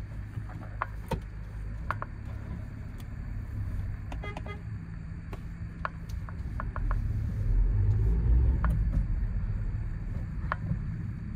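Ford Courier's 1.5-litre diesel engine pulling away at low speed, heard from inside the cabin, its low rumble growing louder about two-thirds of the way through as the van gathers speed. A short electronic beep about four seconds in, and a few light clicks.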